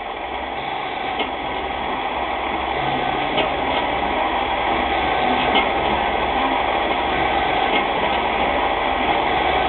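CNC-converted Rexon mini lathe running, with its spindle turning at about 800 rpm while it cuts a 1.25 mm pitch thread. A steady machine noise grows slowly louder, with a low hum that starts and stops in stretches and a few light clicks.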